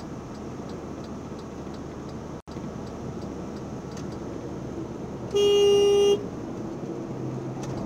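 Steady road and engine noise inside a moving truck's cab. A single vehicle horn blast of just under a second comes about five and a half seconds in and is the loudest sound.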